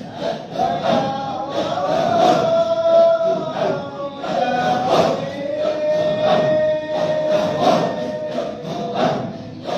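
A group of voices singing or chanting together in long held notes over a steady beat.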